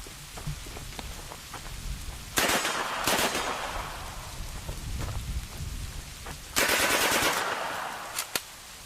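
Gunfire echoing: a heavy shot about two and a half seconds in and another just after three seconds, a rapid burst of automatic fire around six and a half to seven and a half seconds, and two short sharp shots near the end. Between the shots there is a steady rain-like hiss and low rumble.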